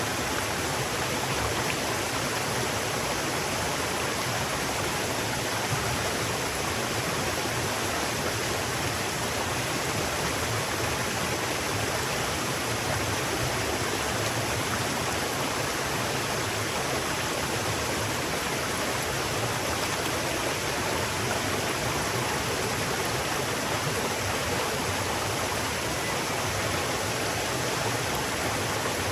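River water flowing steadily, an even rushing sound that does not change.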